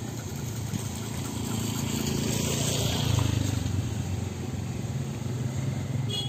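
A motor engine's low rumble, swelling to its loudest about three seconds in and then easing off. It drops away suddenly near the end, after a short clatter.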